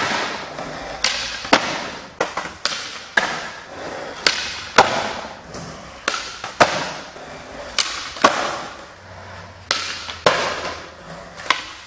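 Skateboard on smooth indoor concrete: wheels rolling, with more than a dozen sharp cracks of the tail popping and the board landing or slapping the floor during flip tricks, echoing in a large hall.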